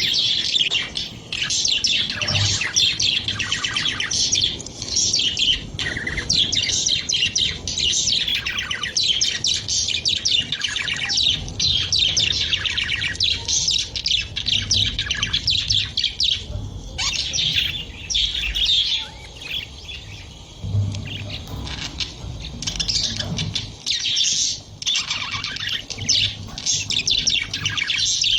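Budgerigars chirping and warbling continuously, a dense chatter of several birds.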